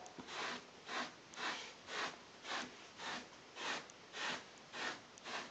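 Hard bristle brush swept across a blanket against the nap in short, scratchy strokes, about two a second, pulling the lint off.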